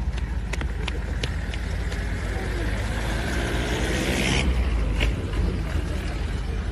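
Motor vehicle engine running and rising in pitch over road noise, with wind rumbling on the microphone; the sound cuts off abruptly about four seconds in. Voices in the background.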